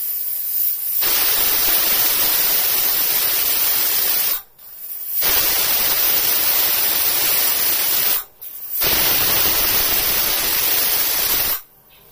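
Stainless-steel pressure cooker whistling: steam hissing out from under the weight valve on the lid in three long blasts of about three seconds each, with short breaks between. These are the whistles counted to time the cooking.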